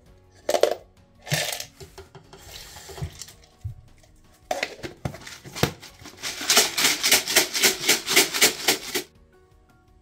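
Small metal parts rattling in a lidded plastic container as it is shaken hard, about five shakes a second for a couple of seconds in the second half. A few sharp clinks and scrapes of the parts come before it.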